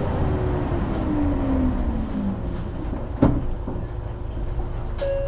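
Isuzu Erga Hybrid city bus slowing down, heard from inside the cabin: a whine from the hybrid drive falls steadily in pitch over about two seconds above a low running rumble. A single sharp knock comes about three seconds in, and a new steady tone starts near the end.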